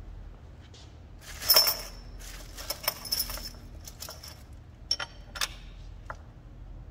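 Small steel nuts and washers clinking as they are handled and hand-threaded onto the ends of threaded clamping rods. The loudest clink, with a brief ring, comes about a second and a half in, and a few sharper clicks follow around three and five seconds.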